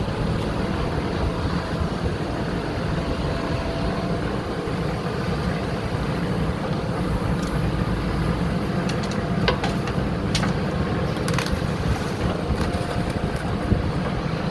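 Diesel engine of a backhoe loader running steadily under work, with scattered sharp clicks and knocks in the second half.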